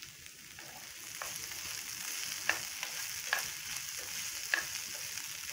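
Chopped okra and peanuts frying in oil in an open nonstick pan: a steady sizzle that grows about a second in, with four sharp clicks scattered through it.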